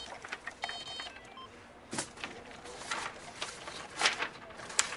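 Sheets of paper rustling as they are flipped and handled, in several short, irregular rustles.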